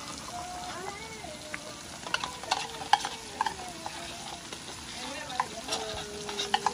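Chopped peppers and onion sizzling steadily in oil in an aluminium pot, with scattered sharp clicks of a metal spoon scraping tomato paste out of a tin can and knocking against the pot.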